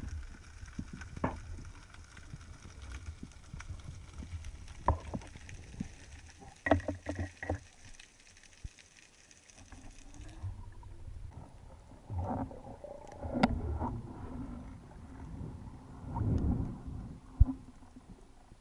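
Muffled underwater sound from a camera on a speargun: scattered sharp clicks and knocks from the spearfishing gear against a low rumble of water. In the second half, two louder stretches of rushing, muffled noise.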